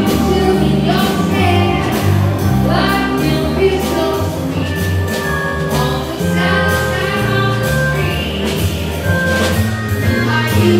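A live band with drums, guitar and keyboards playing a song with a steady beat, a singer carrying the melody over strong bass notes.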